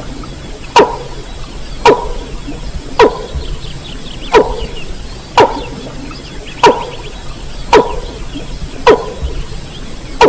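Mandar (rail) call from a lure recording, repeated about once a second: each call a quick, loud downward sweep.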